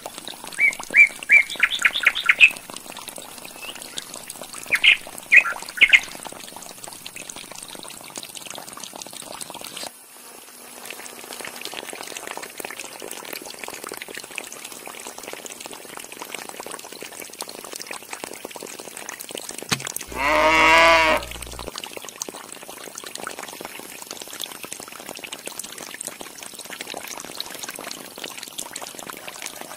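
Birds chirping in quick trills for the first few seconds, then a steady trickle of water pouring from a small hose into a clay pot. About twenty seconds in, a single loud cow moo lasting under two seconds.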